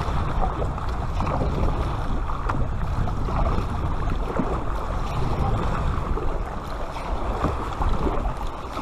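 Kayak paddle strokes dipping and splashing in the sea as an inflatable kayak is paddled along, over a steady low rumble of wind on the microphone.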